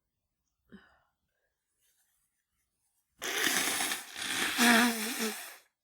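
A woman sneezing hard, brought on by chhinkni and the flu: a sudden loud noisy burst about three seconds in, a brief break, then a second longer burst with her voice in it.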